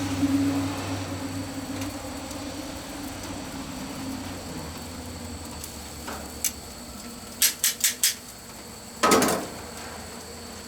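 Metal grilling utensils clicking and clattering: a single click, then a quick run of four sharp clacks, then one louder clatter about nine seconds in, over a steady low hum.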